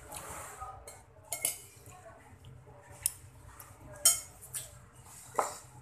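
Metal spoon clinking and scraping against a ceramic bowl during a meal: a handful of short, irregularly spaced clinks, the loudest about four seconds in.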